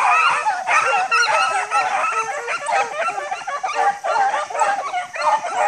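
A pack of beagles baying together, many voices overlapping in a continuous chorus of calls that bend up and down in pitch.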